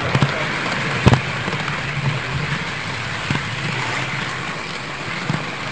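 Model trains running on the layout: a steady rolling rattle with a low hum, broken by a few sharp clicks, the loudest about a second in.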